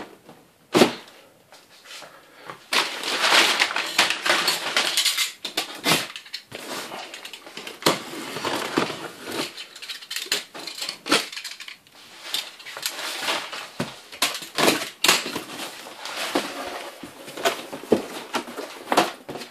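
A cardboard shipping box being opened by hand: a box cutter slitting the packing tape, the cardboard flaps pulled open and crumpled packing paper rustling, with scattered knocks and thumps.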